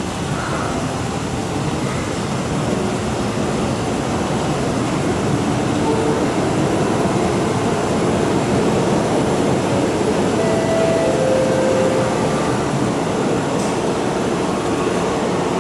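MTR M-Train, a Metro-Cammell electric multiple unit, running through an underground station without stopping, heard behind platform screen doors: a steady rumble of wheels and motors that grows a little louder over the first few seconds. A couple of short, faint squealing tones come about two thirds of the way through.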